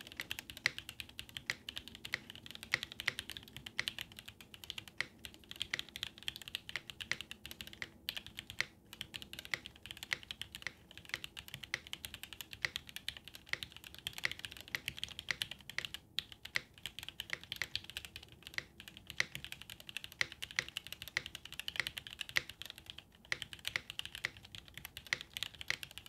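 Fast, continuous typing on a Maxfree K3 mechanical keyboard in stock form, with Gateron Yellow linear switches and PBT keycaps. It is a dense, even run of key clacks with a few brief pauses.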